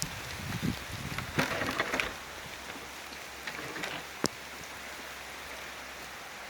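Heavy rain with big drops falling steadily, an even hiss. A few louder rustles come about half a second to two seconds in, and one sharp tap a little after four seconds.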